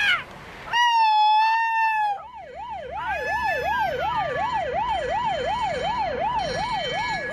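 A loud horn blast lasting just over a second, then an emergency-vehicle siren wailing rapidly up and down, about three sweeps a second. Further siren tones are layered over it.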